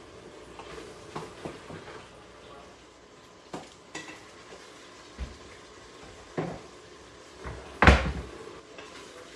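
Kitchen clatter: a string of separate knocks from utensils and the stockpot being handled, then a louder, deeper thump about eight seconds in, a cupboard door shutting.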